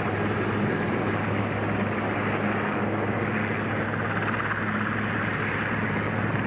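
Denel AH-2 Rooivalk attack helicopter flying low: steady rotor and twin turboshaft engine noise with a constant low hum.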